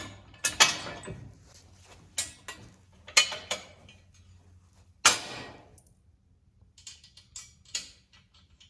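Metal sawmill parts and hand tools clanking and knocking during assembly: a few sharp knocks with a short ring, the loudest about five seconds in, then lighter ticks and clicks.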